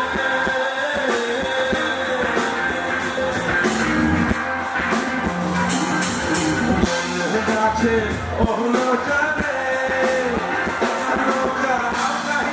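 Live band playing a rock-pop song through a concert PA, with a male lead singer over electric bass, guitar and drums.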